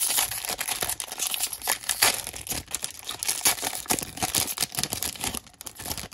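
Foil wrapper of a Topps Baseball trading-card pack crinkling and tearing as it is ripped open, a dense run of crackles that dies away near the end.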